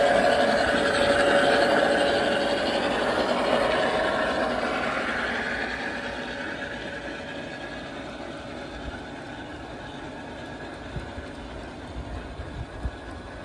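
Large-scale model passenger train running past on its track: wheels rumbling on the rails and a steady motor whine, fading over the first few seconds as the train moves away.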